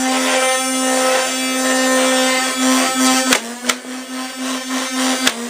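Photon Storm electric flywheel foam dart blaster's motors spinning with a steady whine. Three sharp clicks, a little after three seconds, half a second later and near the end, as darts are fired, with the hum wavering after each.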